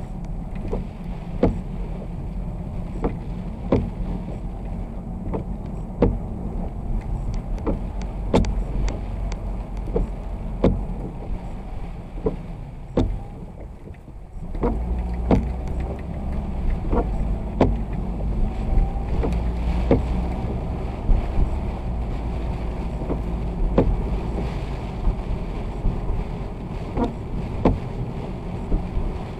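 Car driving in the rain: steady engine and wet-road rumble that grows louder about halfway through, with a windshield wiper click a little less than once a second.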